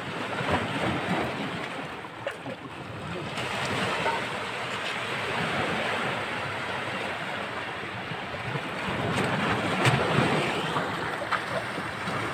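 Sea water washing and surging among shoreline rocks at high tide, a steady rushing noise. Two sharp clicks near the end.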